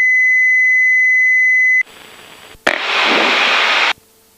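A loud, steady high-pitched beep lasting about two seconds, then about a second in which a burst of hiss comes over the aircraft's headset audio.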